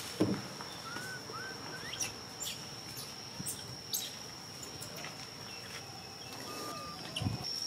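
A steady high-pitched insect drone, with scattered short rising chirps and a few faint clicks.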